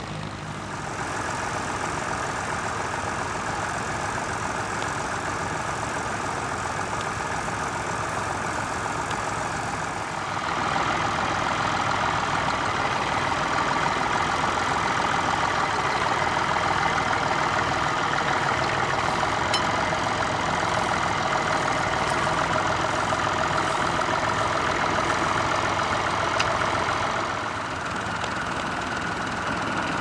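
Small vintage farm tractor engines running steadily under load while ploughing. The sound steps louder about ten seconds in and eases back near the end.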